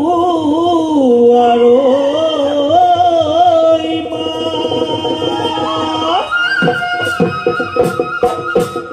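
Live Assamese Bihu folk music: a wavering, sliding melody line over the first few seconds, then a high held wind-pipe note about six seconds in, over fast percussion strikes.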